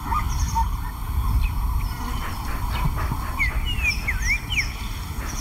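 Outdoor bush ambience: a steady low rumble, with a few quick, high bird chirps about three and a half to four and a half seconds in.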